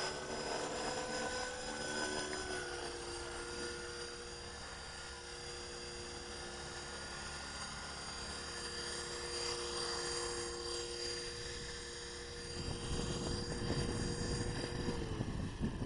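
Blade 330X electric RC helicopter's motor and rotors whining steadily in flight. The pitch drops slightly about two seconds in, and the whine cuts off near the end. A low rushing noise rises in the last few seconds.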